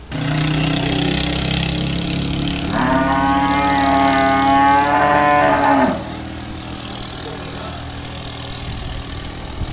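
Cattle mooing: one long low call that opens up louder about three seconds in and breaks off with a falling pitch at about six seconds. A quieter low steady hum carries on after it.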